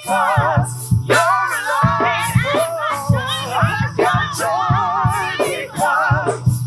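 Live gospel worship music: a singer's wavering, vibrato-laden voice over a band with regular drum strokes and a sustained low bass note.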